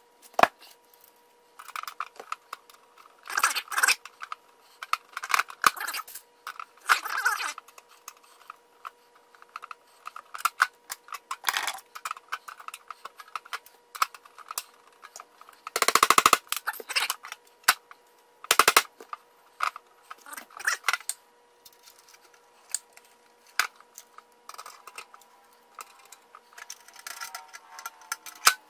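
Sharp clicks and short metallic clatters at irregular intervals from a hand rivet gun, pop rivets and a steel handle bracket being handled on a painted steel tool box lid, over a faint steady hum.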